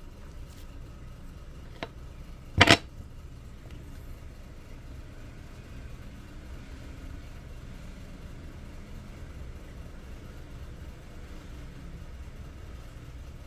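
A steady low hum, with a faint click and then a sharp double knock about two and a half seconds in.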